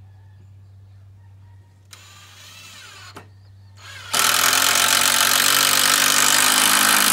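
Cordless drill driving into timber framing: a short run with rising pitch about two seconds in, then a loud steady run of about three seconds from about four seconds in that stops sharply at the end.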